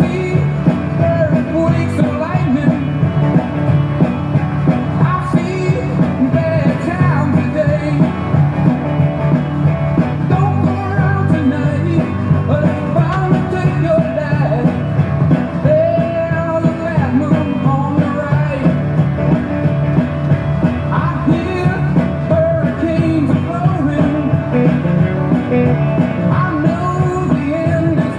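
Rock music with electric guitar and singing.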